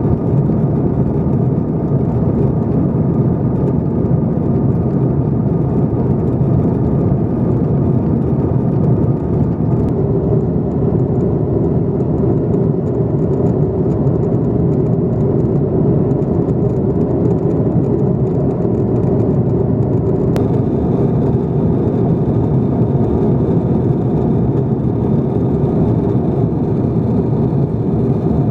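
Steady engine and airflow noise heard inside the passenger cabin of an Airbus A330-300 airliner, with a faint click about two-thirds of the way through.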